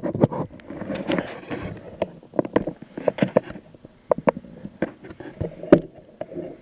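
Irregular sharp knocks and clicks with short rustles: handling noise as the camera is carried and set down. The loudest knock comes near the end.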